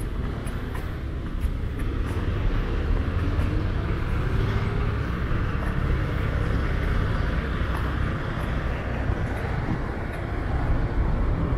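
Road traffic on a city street: the engines and tyres of passing cars and trucks, one engine rising in pitch for a couple of seconds as it speeds up.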